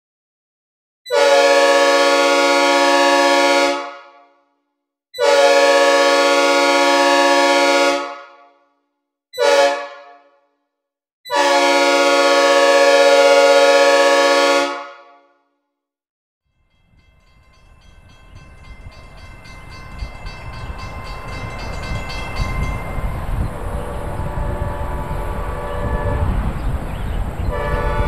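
Synthesized recreation of a Nathan P5A mixed-cast five-chime air horn, as on Union Pacific 8952, sounding a chord in the grade-crossing pattern: two long blasts, a short one and a long one, each with a reverb tail. About two seconds after the last blast, the rumble of an approaching train begins and swells steadily, with the horn chord coming in faintly near the end.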